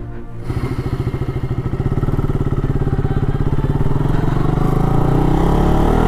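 KTM RC motorcycle's single-cylinder engine starting about half a second in and running with a fast, even pulse, its revs rising toward the end as the bike sets off.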